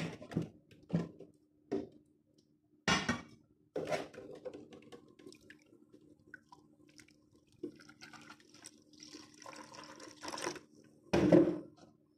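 Blended beetroot juice being poured and strained through a sieve into a container: liquid splashing and dripping in several short bursts, the loudest near the end.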